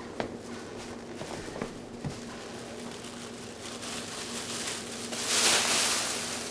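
Handling and opening a food container or wrapping: small clicks and taps, then a louder rustling swish about five seconds in, over a faint steady hum.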